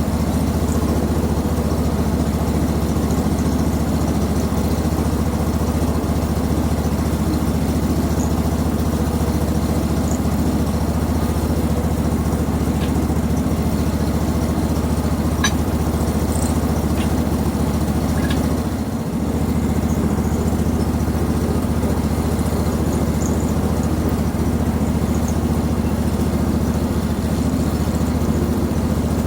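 Hud-son Homesteader HFE30 bandsaw mill's engine running steadily, with a brief dip in engine speed about two-thirds of the way through.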